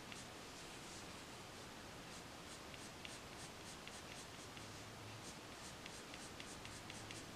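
Prismacolor colored pencil scratching faintly on paper in quick, short flicking strokes, several a second, with a pause of about a second past the middle.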